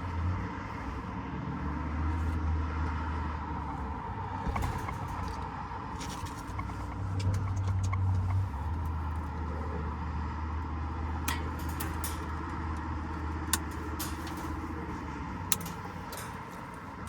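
Steady low mechanical hum, with scattered sharp clicks and taps of hand work on the unit's wiring and parts.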